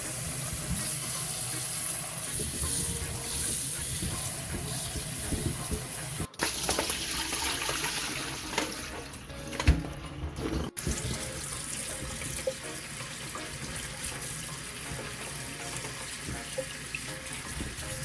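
Kitchen tap running into a sink as Brussels sprouts are rinsed under it, with light handling noise and one sharp knock about ten seconds in. The running water breaks off briefly twice.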